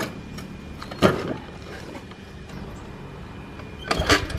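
Small scooter engine being kick-started: a hard thump of the kick about a second in, then a second kick near the end on which the engine catches and starts running with a low, fast putter.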